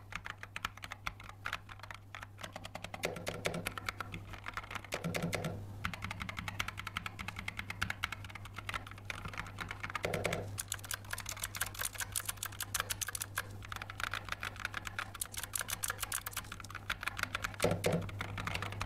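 Rapid typing on a Gamen Titan V mechanical keyboard modded with DA x Ajazz Gummy linear switches and XDA-profile PBT keycaps; some rows still run the stock tactile switches. The keystrokes are fast, dense clicks, with a few deeper, louder strikes.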